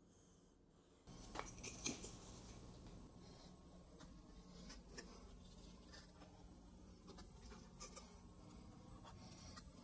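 Near silence, then faint handling sounds starting about a second in: light scrapes and small clicks of a glue brush and glued walnut box pieces on a wooden workbench, over a faint low hum.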